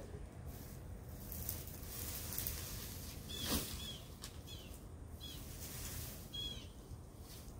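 Bird chirping outdoors: about five short, high chirps spread over a few seconds in the middle, over steady outdoor background noise, with one sharp knock about three and a half seconds in.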